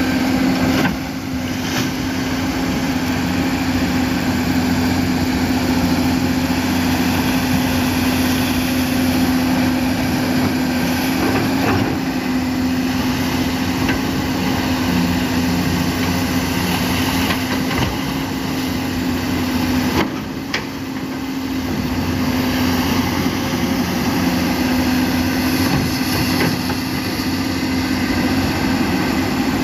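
Komatsu PC200 long-arm excavator's diesel engine running at a steady working hum as the arm digs in a ditch, with a few faint knocks, one of them about twenty seconds in.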